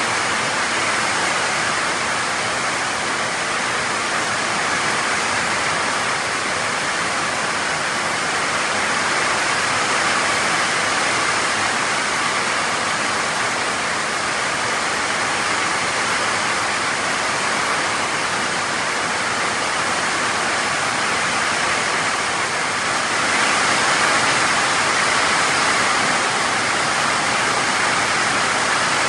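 Heavy rain pouring steadily onto dense trees and foliage, a loud even hiss that swells slightly about 23 seconds in.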